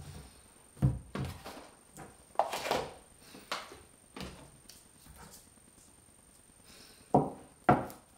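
Food packages (a plastic bottle, cans, a jar and boxes) being picked up and set down on a wooden table: a series of separate knocks and clunks, with two loud thuds a half-second apart near the end.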